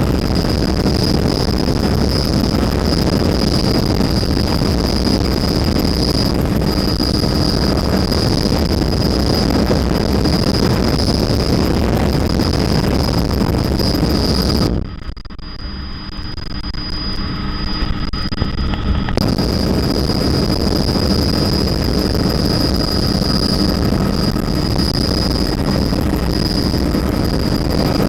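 Helicopter cabin noise: loud, steady engine and rotor drone with a constant high whine over it. About halfway through, the higher sounds drop away and it goes muffled and quieter for a few seconds, then returns.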